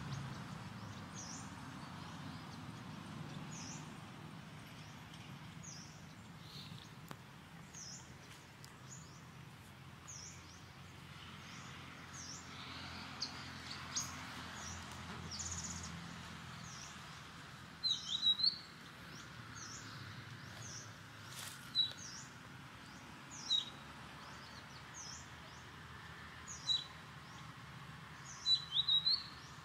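Birds calling in woodland: a short, high, falling chirp repeated about once a second, joined in the second half by louder single calls every few seconds. A low rumble sits under the first half.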